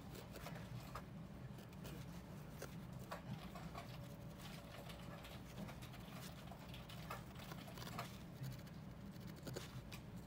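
A barbed felting needle stabbing into a wool ball and the foam pad beneath it, making faint, irregular small clicks and scratches over a low steady hum.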